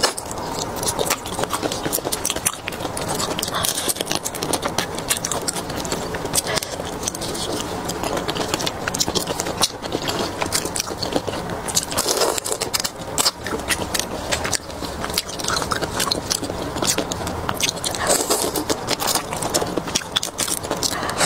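Mantis shrimp eaten close to the microphone: the shell crackles and crunches as it is bitten and pulled apart by hand, with chewing. Many small clicks and crackles run on without a break.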